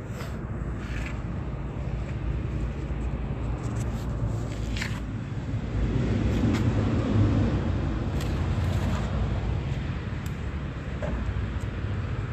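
Car interior noise: a steady low engine and road rumble heard from inside the cabin, swelling a little around the middle, with a few brief clicks and rustles.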